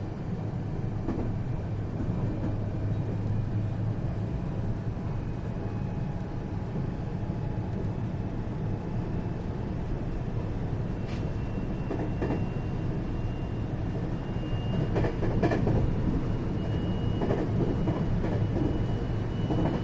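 A 521 series electric multiple unit running on the line, heard from inside its motor car: a steady low rumble of wheels and running gear. From about halfway a faint high tone slowly rises in pitch, and a handful of short knocks come as the wheels pass over rail joints, the running growing louder toward the end.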